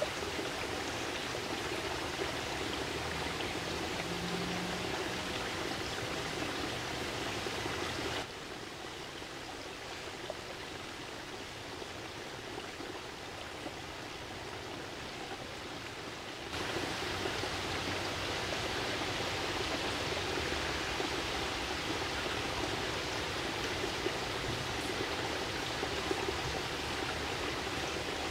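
Small forest stream flowing steadily, an even rush of water; it drops abruptly a little quieter for several seconds in the middle, then returns.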